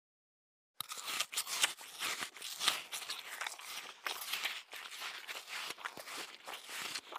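Close-up eating sounds of fresh fruit being chewed: irregular wet smacks and crunches in quick succession, starting about a second in after a moment of dead silence.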